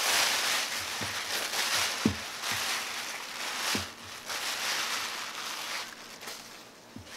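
Thin plastic shopping bag crinkling and rustling as it is handled, with a few soft thuds of hard plastic containers set down on a table. The crinkling fades out near the end.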